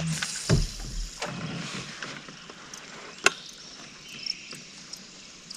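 Fishing gear being handled in a small boat: a couple of low knocks in the first second or so, then one sharp click a little past three seconds in. Faint insect or bird sounds carry on behind.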